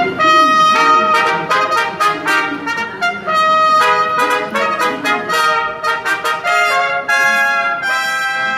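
Three trumpets playing a fanfare together, a run of short notes at first and longer held notes near the end.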